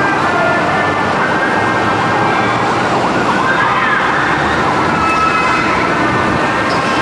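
Steady, loud city traffic noise with a siren wailing, its pitch gliding up and down about halfway through.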